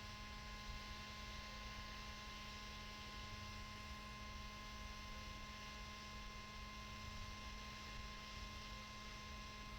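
Faint steady electrical hum with a thin high whine, unchanging throughout.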